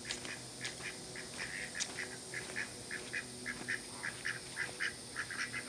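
Ducks quacking softly, a steady run of short, quiet calls several times a second.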